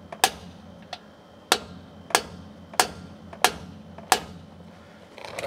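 Hammer blows on a steel bearing race in the rear differential housing: six sharp metallic strikes, about two-thirds of a second apart, with a lighter tap about a second in.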